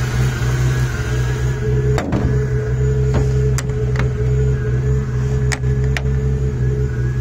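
BMW M54B30 3.0-litre inline-six, freshly rebuilt with Schrick's most aggressive camshafts and not yet tuned, idling steadily. About six sharp clicks sound over it, the loudest about two seconds in, as the quick-release hood pin latches are pressed.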